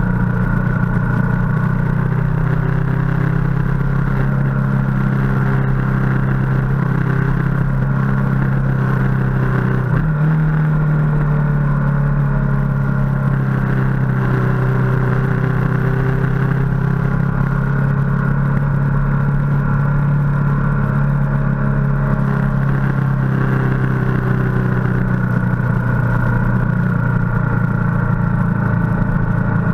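Ducati motorcycle engine running at a steady road speed. About ten seconds in, its note rises sharply and then slowly falls back as the throttle changes.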